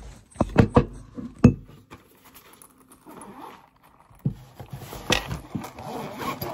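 A few sharp knocks as the phone is set back in place, then clicking and rustling from a zippered fabric pencil case being handled and opened.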